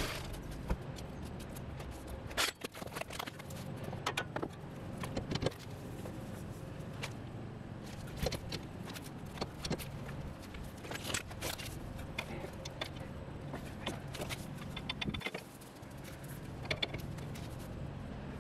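Irregular metal clinks and knocks of hand tools and suspension parts being handled at a car's front wheel hub, over a steady low hum.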